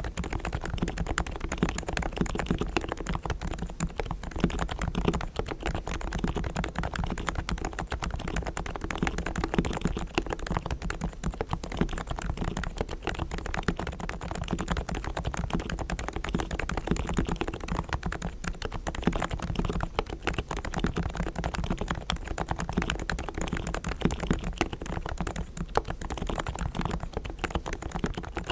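Realforce R3 tenkeyless keyboard with Topre 45 g silent, equal-weight switches, its springs and sliders fully lubed with Krytox and its case foam-dampened, being typed on in a dense, continuous run of keystrokes.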